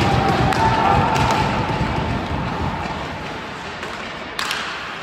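Ice hockey play echoing around a large, near-empty rink: a wash of skate, stick and arena noise, loudest at the start and fading over the first three seconds, then one sharp clack about four and a half seconds in.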